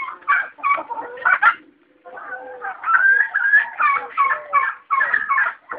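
A flock of chickens clucking, many short overlapping calls, with a brief lull about one and a half seconds in.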